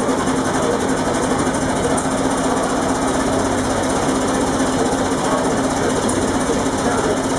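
Vintage inline multi-cylinder marine diesel engine with open valve gear, running steadily with a rapid, even mechanical clatter over a steady hum.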